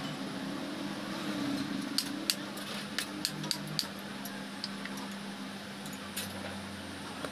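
Hammer and metal tools knocking against a truck power steering gear box: a series of sharp metallic clinks and taps, the loudest about two seconds in, over a steady low hum.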